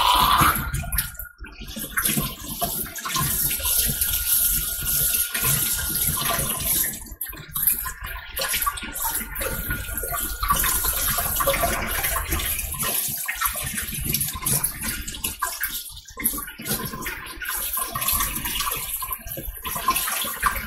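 Kitchen sink faucet running while hands are rinsed and rubbed under the stream, washing off a sticky flour coating; the splashing dips and swells as the hands move through the water.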